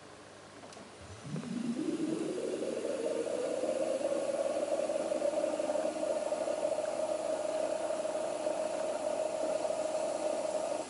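Akai GX-215D reel-to-reel tape deck starting playback of a recording on Maxell UD tape. About a second in, the recorded sound slides up in pitch as the tape comes up to speed, then settles into a steady held tone.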